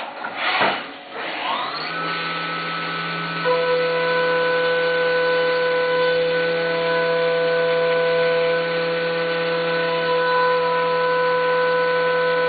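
CNC milling machine spindle spinning up, its whine rising in pitch and settling about two seconds in. About three and a half seconds in, further steady tones and a step up in loudness join as the end mill cuts aluminum under flood coolant.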